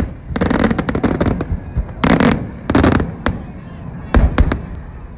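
Aerial firework shells bursting overhead, a run of sharp bangs coming in several quick clusters.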